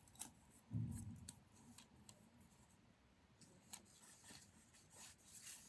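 Faint crackles and rustles of small sticky tabs being peeled off and pressed onto book pages, with a dull bump about a second in.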